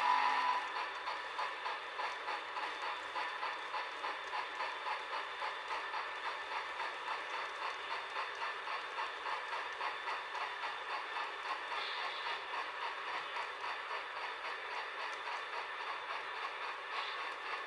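Sound decoder in an HO-scale Union Pacific Big Boy steam locomotive model playing steady, rhythmic steam-exhaust chuffing through its small speaker, thin with no low end. A whistle cuts off in the first half-second.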